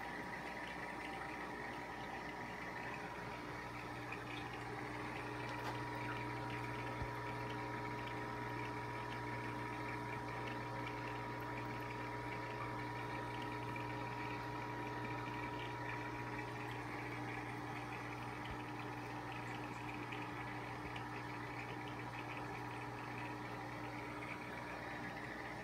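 Steady bubbling and water noise from a heavily aerated aquarium's curtain of air bubbles, over a constant low hum.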